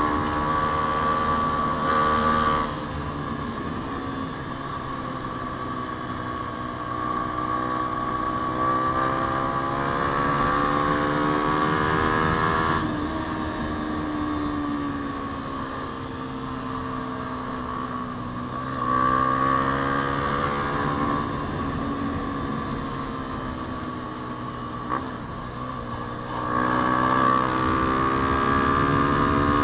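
Yamaha Sniper 150's single-cylinder four-stroke engine through a JVT aftermarket exhaust while riding. Its pitch repeatedly climbs and falls as the throttle is opened and closed, with the loud stretches dropping away sharply about 2.5 and 13 seconds in, and a brief click about 25 seconds in.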